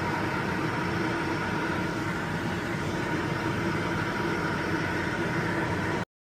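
Coleman Mach rooftop RV air conditioner running on cool with its compressor under load, a steady even drone with a faint steady tone in it. The sound cuts off abruptly just before the end.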